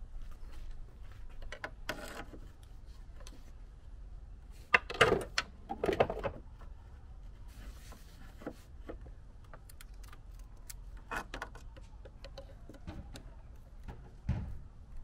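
Light clicks, scrapes and knocks of a metal pick and gloved hands working the plastic hose clips and upper hose connection on a BMW E46's coolant expansion tank, loudest around five to six seconds in.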